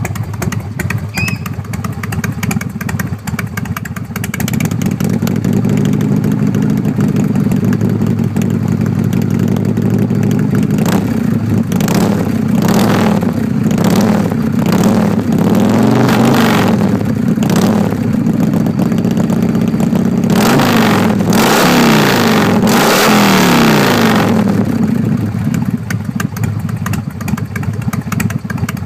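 Harley-Davidson Fat Boy's Evolution V-twin, with Screamin' Eagle heads and Screamin' Eagle mufflers, idling and then revved: a string of quick throttle blips around the middle, then a longer run held at high revs, before it drops back to idle near the end.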